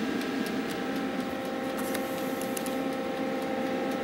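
Steady electrical hum with a few whining tones and a light ticking about four times a second, from a toaster oven running under roughly 800 W of load on a Jackery Explorer 1000 battery power station.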